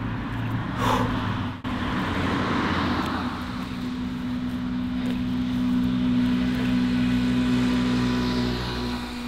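An engine running steadily at an even pitch, a low hum that holds for several seconds.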